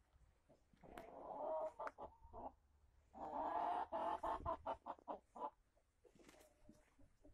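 Brahma chickens clucking in two bouts, one about a second in and a longer one from about three seconds, which breaks into a quick run of short clucks.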